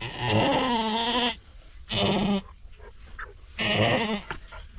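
Doe goat in labour bleating loudly three times while straining to deliver a kid: one long call, a short one, then another long one.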